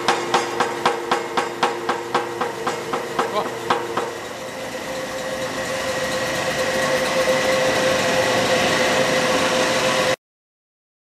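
Anyang C41 pneumatic power hammer (air hammer) striking in a fast, even run of about four blows a second. About four seconds in the blows stop, and the hammer's motor-driven air compressor runs on steadily, growing slightly louder, until the sound cuts off suddenly near the end.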